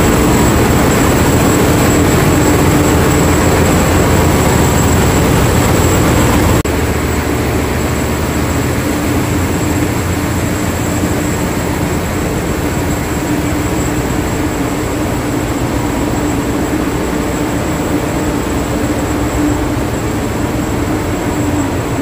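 Loud, steady din of a ship's engine room with the large marine diesel main engine running, a thin high whine over it. The din steps down a little about seven seconds in.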